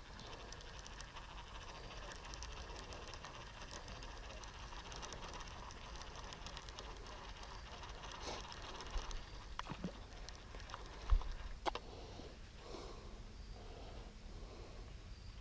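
Fishing reel being wound in, a fast run of light ticks over a faint background, with a few sharper knocks in the second half.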